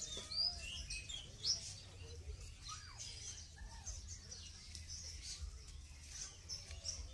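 Many small birds chirping and twittering: short high notes and quick up-and-down whistles, overlapping and scattered throughout.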